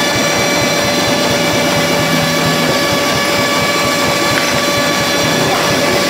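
A turn-of-the-century generator and the engine driving it running steadily at about 750 rpm under a load of light bulbs: a constant mechanical whir with several steady high tones over it. Its brushes drag because they are not seated correctly.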